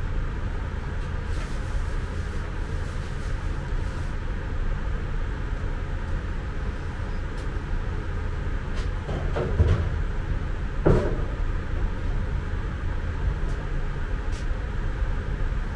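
A steady low rumble of room background noise, with two clunks about a second and a half apart near the middle.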